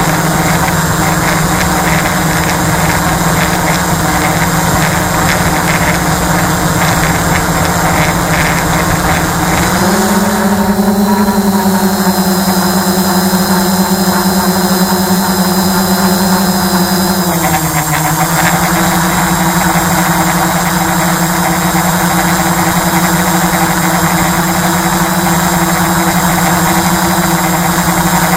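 Multirotor drone's motors and propellers humming steadily. The pitch steps up about ten seconds in and settles back down about seven seconds later.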